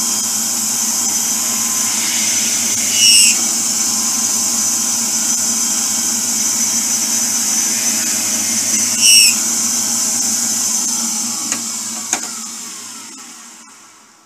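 Drill press running steadily while drilling holes in a wooden spinner disc, with two brief high squeals from the bit about six seconds apart. Near the end the motor is switched off and spins down, falling in pitch and fading out.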